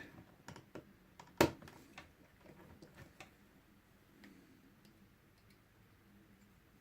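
Side cutters snipping a small plastic kit part off its sprue: one sharp snap about a second and a half in, then light clicks and taps as the small plastic pieces are handled.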